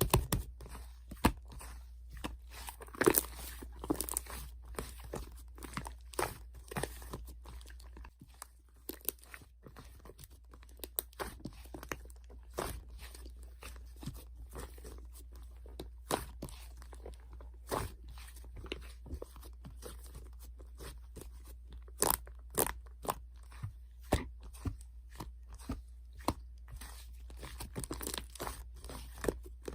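Slime being squeezed and poked by hand, giving irregular crackling clicks and sticky pops, a few of them much louder than the rest.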